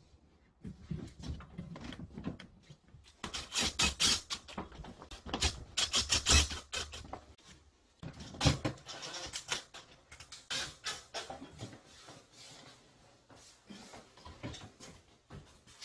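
Handling noise close to the microphone: irregular clicks, knocks and rustling as hands work at the water heater's pipe fittings, busiest in the first half with one sharp knock about eight and a half seconds in, then sparser.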